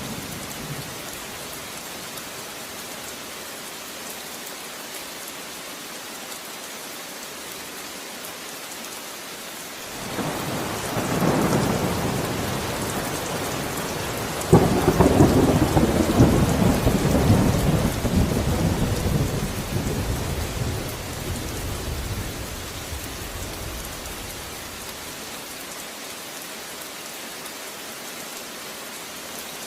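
Steady rain falling, with a roll of thunder that builds about a third of the way in, breaks into a sudden louder clap around the middle, then rumbles away over several seconds.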